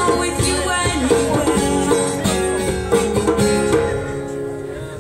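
A small live acoustic band plays the closing bars of a song: two acoustic guitars strum, with djembe hand-drum strokes. The final chord rings out and fades away near the end.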